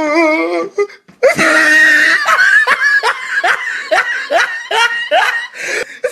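Loud laughter: after a brief wavering voice and a short pause, a rapid run of repeated hearty laughs, about two or three a second.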